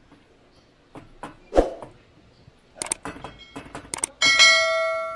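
A few knocks of a wooden spatula against an aluminium wok, then a quick run of sharp clicks and a bright bell chime about four seconds in that rings and slowly fades: a subscribe-button sound effect.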